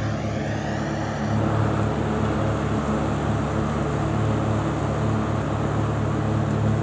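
Farm tractor's engine running steadily, a low droning hum, as it tows a multi-deck mower across the grass. A falling whoosh passes in the first second or so.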